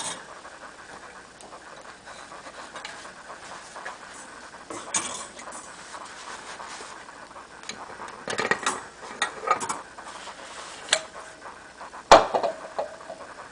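Metal bread-machine pan and wire cooling rack knocking and clattering as the hot pan is handled with fabric oven mitts and the loaf is tipped out onto the rack. There are scattered short clatters, and one sharp knock near the end.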